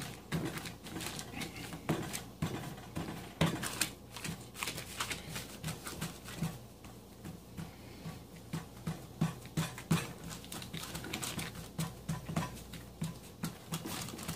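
Hands patting and pressing pie-crust dough flat on a paper sheet: a run of soft, dull pats with light rustling of the paper, coming quicker, about two or three a second, in the second half.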